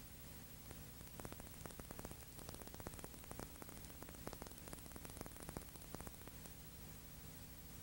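Faint steady hiss and low hum of recording noise, with a run of light crackling clicks between about one and six seconds in.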